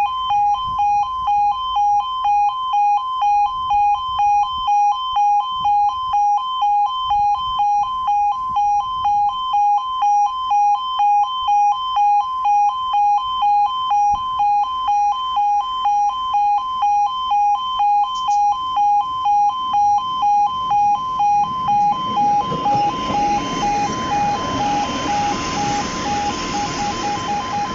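Level crossing's two-tone warning alarm sounding in steady pulses about twice a second. From about 22 s a Class 156 diesel multiple unit runs over the crossing, and its engine and wheel noise rises under the alarm.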